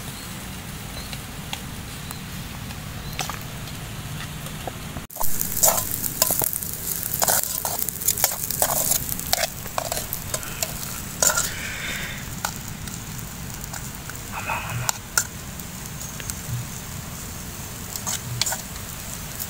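Fried rice sizzling in a metal pot over a wood fire while a metal utensil stirs it, scraping and knocking against the pot. The scraping and clicking get busier and louder from about five seconds in.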